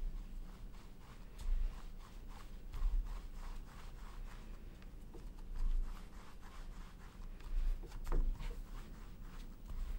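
Hands rolling a lump of taro and glutinous-rice dough back and forth on a wooden board: soft rubbing and scuffing of palms on dough and wood, with dull low bumps every second or two.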